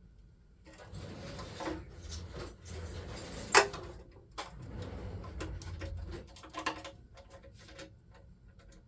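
Ratchet wrench on a flexible extension clicking in irregular spurts, with metal tool clinks and one sharp clack about three and a half seconds in, as a bolt behind the starter is worked loose.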